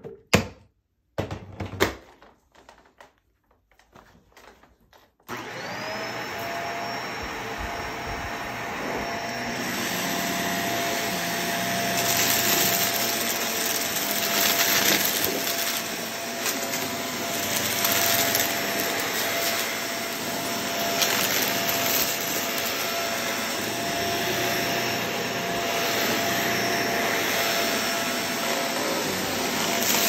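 A few sparse clicks, then about five seconds in a Shark vacuum cleaner switches on, its motor whine rising quickly to a steady pitch. It runs over the carpet with a crunchy crackle as it sucks up confetti and small debris.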